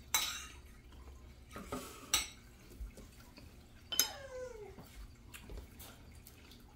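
Forks clinking against plates during a meal: a few sharp clicks, the last of them about four seconds in and followed by a brief falling tone.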